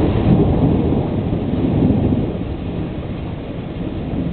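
Thunder from a thunderstorm: a deep rolling rumble, loudest over the first two seconds and then easing off.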